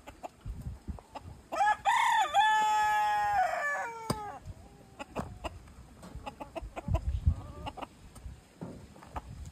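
A rooster crows once, a long call starting about a second and a half in and lasting nearly three seconds, with the pitch rising and then falling away at the end. Later come scattered light clicks and a few dull thuds.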